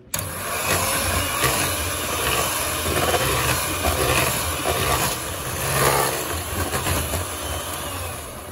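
Electric hand mixer running, its twin wire beaters whisking egg and flour into cake batter in a plastic bowl. The motor switches on abruptly and runs steadily, cutting off at the very end.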